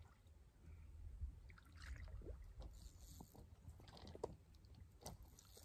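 Faint splashing of a hooked fish thrashing at the water's surface near the bank, several short splashes over a low rumble.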